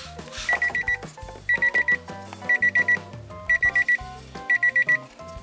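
Background music with a repeating electronic beeping, like an alarm clock: a quick run of about six high beeps once every second, over a melody and bass line.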